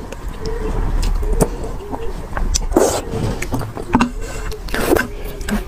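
Close-miked slurping and chewing of vermicelli noodles in sesame sauce, with two loud wet slurps about three and five seconds in and small wet mouth clicks between them.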